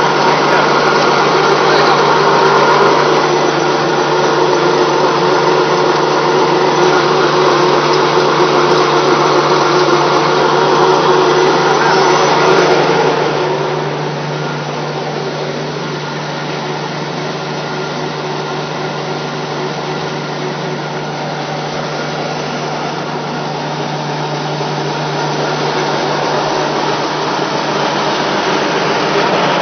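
Electric-driven flat die pellet mill running, pressing animal feed into pellets: a steady mechanical drone over a constant hum. It drops in level about halfway through and slowly grows louder again near the end.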